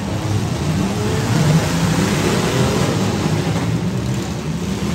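Several compact demolition-derby car engines running and revving at once, their overlapping notes rising and falling.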